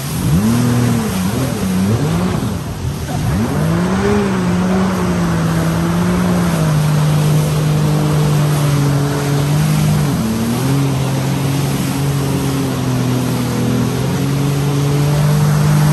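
Jet ski engine running under way. Its pitch dips and rises several times in the first few seconds as the throttle is eased and opened again, then holds fairly steady with small shifts, over a steady rushing noise.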